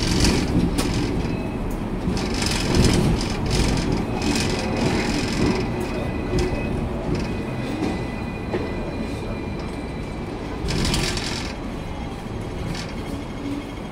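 Hong Kong double-decker electric tram running along street tracks, heard from on board the upper deck: a steady rumble and rattle of the car with clicks over the rails and a faint wheel squeal midway. A short hiss about eleven seconds in.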